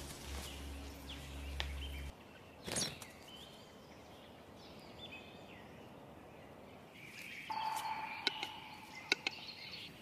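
Faint woodland ambience with scattered bird chirps and calls, livelier in the second half, where a few sharp clicks stand out. A low hum stops about two seconds in, and a brief rush of noise follows soon after.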